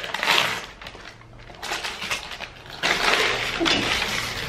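Christmas wrapping paper being torn and crinkled off a gift box, in three bursts of rustling with a lull about a second in; the last and longest starts about three seconds in.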